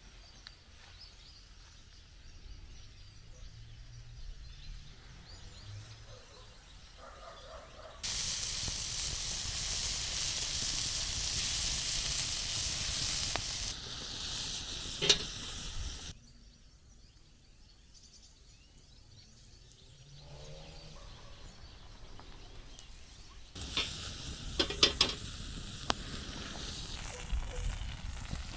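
Pumpkin sizzling as it cooks over a campfire. The hissing sizzle comes in two stretches, about a third and again about four-fifths of the way in, with a few sharp pops. In between is quieter outdoor background.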